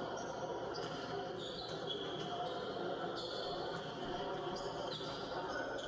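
Balls bouncing on the court floor of an indoor sports hall as players warm up, a few separate thuds, over a steady echoing murmur of voices.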